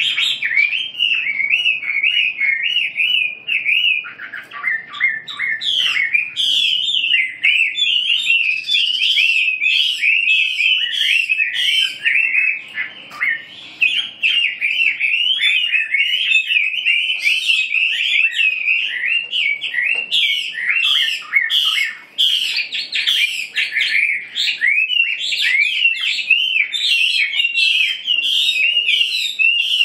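Caged songbirds singing almost without pause: fast, chirpy warbled phrases running into one another.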